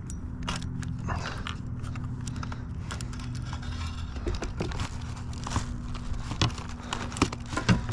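Scattered clicks, knocks and rattles as a just-landed blue catfish and fishing gear are handled in a boat, with a sharper cluster of knocks near the end, over a steady low hum.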